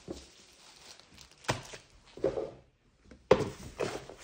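Handling noise: a few sharp clacks and knocks of an airsoft pistol and its packaging being picked up and set down, the loudest about three seconds in.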